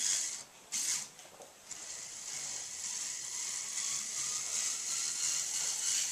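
The small electric motor and plastic gear train of a ROKR Emperor Scorpion animated model kit running, a steady high-pitched mechanical whir with ratcheting gear clatter. It dips briefly twice in the first couple of seconds.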